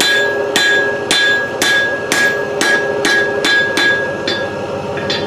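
Hand hammer striking hot 4140 tool steel on an anvil, about two blows a second, each blow followed by a short ringing tone from the anvil. The smith is forging the corners of a round punch blank down into an octagon.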